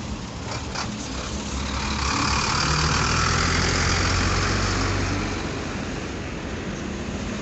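A motor vehicle passing close by on the road: engine and tyre noise swell from about two seconds in, then fade after about five seconds, over steady traffic noise.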